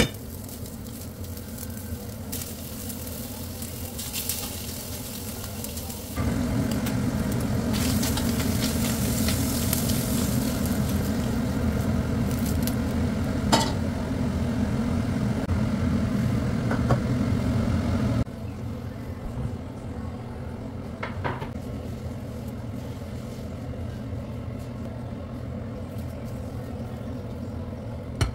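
Crumbled sausage meat sizzling as it fries in a stainless steel pan, with a few sharp clicks of a utensil against the pan. The sizzling is louder for a long stretch in the middle, starting and stopping abruptly.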